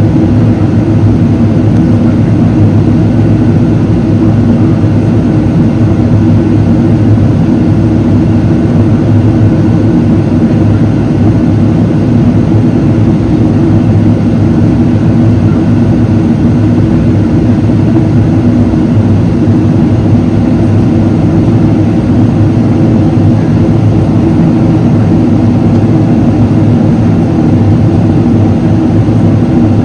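Steady, loud cabin noise inside a Boeing 777-300ER in the climb, with the low drone of its General Electric GE90-115B engines and several steady hum tones beneath it.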